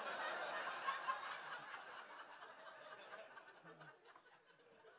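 Comedy club audience laughing, strongest at the start and dying away over about four seconds.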